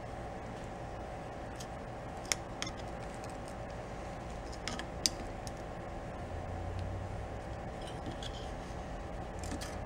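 A metal tie wrap gun clicks a few sharp times as it tensions a metal tie around fabric exhaust wrap, over a steady hum.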